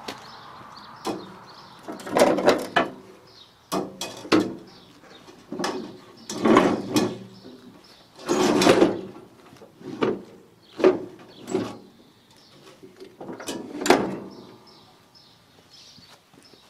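Steel housing of a Countax powered grass collector being handled and hooked onto a ride-on mower's rear mounting brackets: a string of irregular metal clanks, knocks and scrapes, some ringing briefly.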